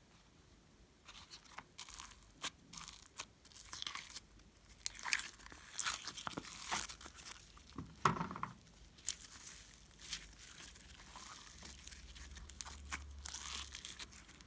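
Hands squishing and kneading glossy slime: a quick, irregular run of sticky crackles and pops that starts about a second in.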